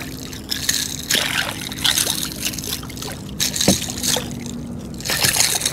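Small hooked bluefish thrashing at the water's surface beside a kayak, splashing in irregular bursts.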